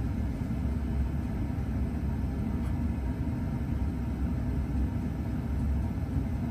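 Steady low rumble of air moved by a 52-inch Hampton Bay Quick Connect ceiling fan coasting down after being switched off.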